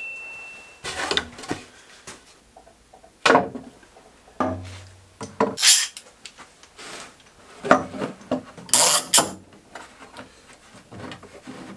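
Sheets of wood being handled in a workshop: several separate knocks and scrapes of wood on wood, with rubbing between them and a brief low hum about halfway through.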